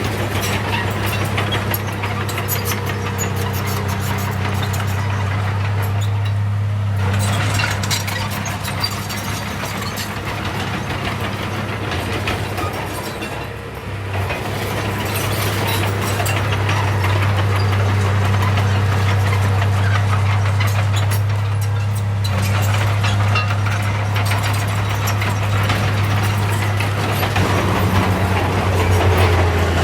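Heavy earthmoving machine's diesel engine running steadily, with rattling and clanking over it; the engine note dips briefly about halfway through.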